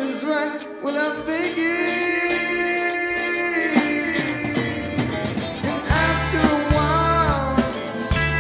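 Live rock band playing: electric guitars ringing out with held, bending notes and vocals, then bass guitar and drums coming in heavily about six seconds in.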